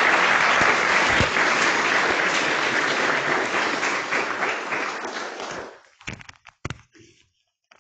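Lecture audience applauding, a dense steady clapping that dies away about six seconds in, followed by a few isolated claps.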